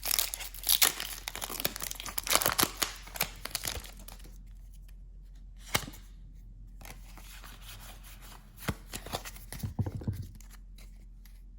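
A foil Pokémon booster pack wrapper being torn open and crinkled, dense crackling for about the first four seconds. A single click follows near the middle, then a short burst of rustling near the end.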